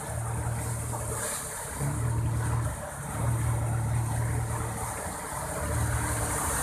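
A Chevrolet MUV's engine runs as it pushes through deep floodwater, its wheels churning and sending a wave of water ahead of it. The engine's low hum rises and falls several times, and the sound grows louder as the vehicle comes closer.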